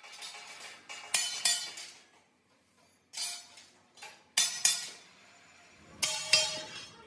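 Steel plate parts and steel blocks striking each other, giving sharp metallic clanks that ring briefly. The clanks come mostly in quick pairs, with short quiet gaps between them.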